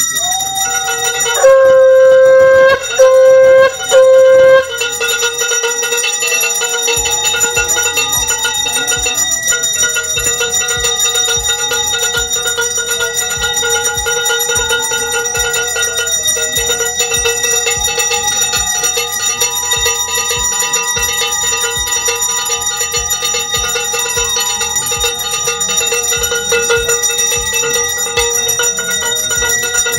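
A puja hand bell rung continuously during aarti, its ringing steady throughout. Near the start come three loud, steady blasts of a conch shell.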